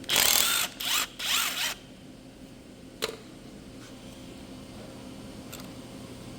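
Ratchet wrench ratcheting in three quick runs of rapid clicking, then a single sharp metal click about three seconds in, as the connecting rod cap bolts are undone to check for a spun rod bearing.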